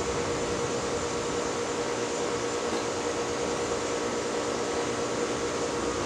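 Southern Fan Co. Tara ceiling fan running, a steady motor hum with the whir of its spinning wooden blades.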